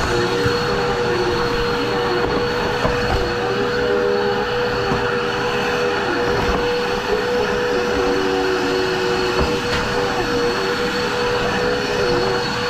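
Two Dirt Devil vacuum cleaners running at once: a steady motor whine, with a second, slightly lower motor note that dips and recovers every second or two as the suction loads and frees.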